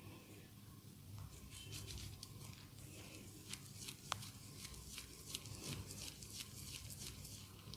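Faint crackly rustling with scattered small clicks, one sharper click about four seconds in, over a low steady hum: close handling noise.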